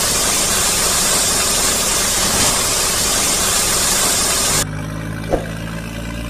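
Dubbed heavy truck sound effect: a loud, even hiss that cuts off about four and a half seconds in, leaving a truck engine idling steadily.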